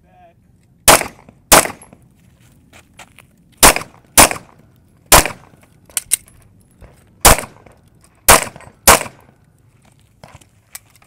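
Glock 19 9 mm pistol fired eight times in quick succession, mostly in pairs about half a second apart with one- to two-second pauses between them.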